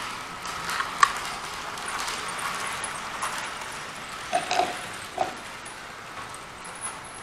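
Close handling noise: rustling with a sharp click about a second in and a few knocks between about four and five and a half seconds.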